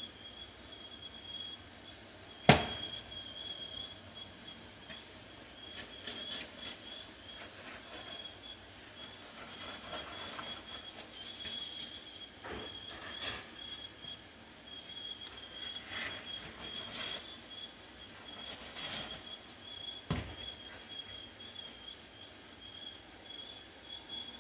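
Ingredients being stirred in a mixing bowl: scattered scraping and clinking of a utensil against the bowl, with one sharp knock about two and a half seconds in and a smaller one near the end. A steady high-pitched pulsing trill runs underneath.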